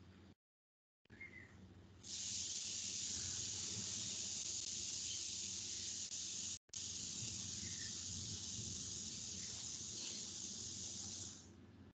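Steady high-pitched hiss of an open microphone on a video call, over a faint low hum. It switches on about two seconds in, drops out for an instant past the middle, and fades shortly before the end.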